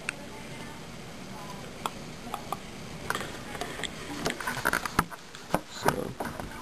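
Handling noise: a scatter of light clicks and knocks over a quiet background as a cable is plugged into a computer and things are moved about.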